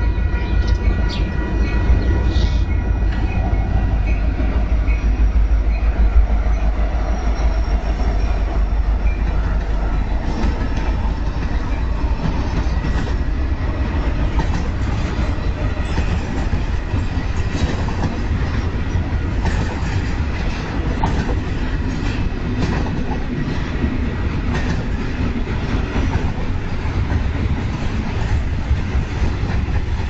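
Union Pacific diesel locomotives rumbling slowly past, then a double-stack intermodal train rolling by, with repeated wheel clicks over the rails from about ten seconds in.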